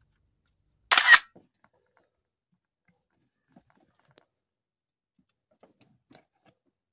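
A short, sharp double click-clack about a second in, then a few faint small clicks.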